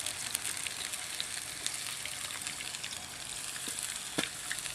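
Fish and frog legs frying in hot vegetable oil in a thin skillet over campfire embers: a steady sizzle with scattered small pops, and one sharper click about four seconds in.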